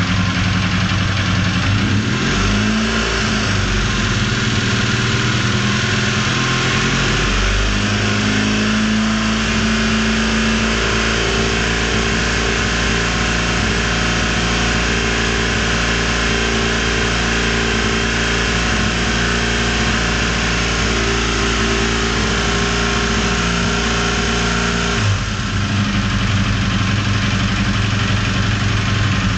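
Honda CB450's air-cooled parallel-twin engine running, brought up from idle over a few seconds, held at raised revs, then dropped back to idle about 25 s in. This is the engine whose strange noise is being investigated.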